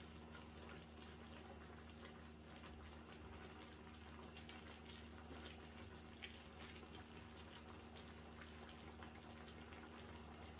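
Faint bubbling of a tomato-based white bean stew simmering in a pan, with many small pops and crackles scattered through it as it is stirred.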